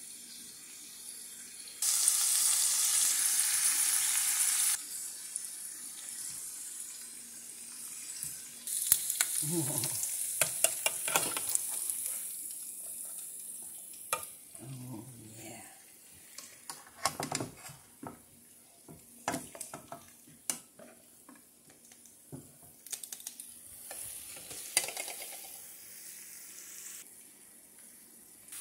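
Chuck eye steaks sizzling in a frying pan. About two seconds in, a loud steady hiss starts suddenly and lasts about three seconds. Later, a utensil clicks and scrapes against the pan over a softer sizzle.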